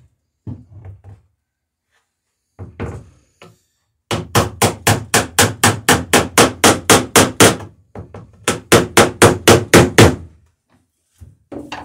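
Hammer riveting a boat plank, struck in quick even blows about four a second. The blows come in two long runs, with a short pause about halfway through. A few softer knocks come near the start.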